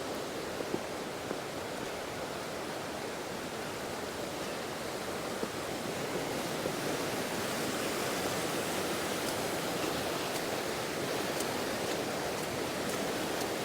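A fast-flowing river swollen with heavy rain, rushing steadily, a little louder in the second half.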